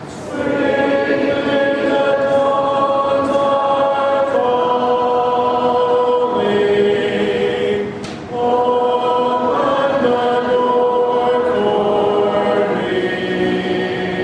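Congregation singing a hymn a cappella, without instruments, in long held notes, with a short break for breath about eight seconds in.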